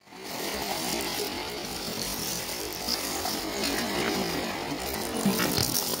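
A hand raking and scooping through a bed of broken seashells, giving a continuous crunching and clinking of shell on shell, with a few sharper clinks near the end.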